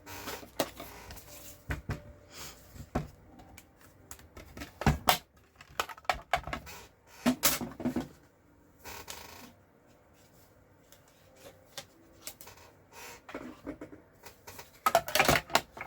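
Paper-crafting handling sounds: cardstock pieces and small metal dies being picked up, shuffled and set down on the desk, giving irregular clicks and taps, with a brief rustle around the middle and a quick run of clicks near the end.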